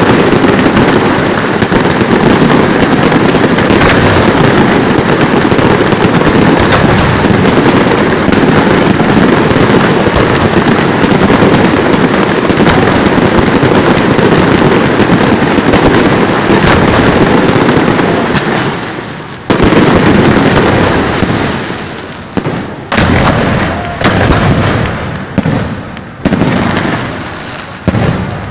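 Aerial firework shells bursting overhead in a dense, continuous barrage of bangs and crackle. About two-thirds of the way in the barrage thins to separate loud bangs roughly once a second.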